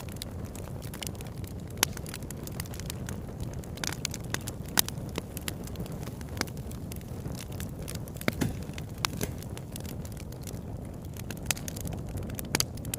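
A fire crackling, with irregular sharp pops and snaps over a steady low rumble.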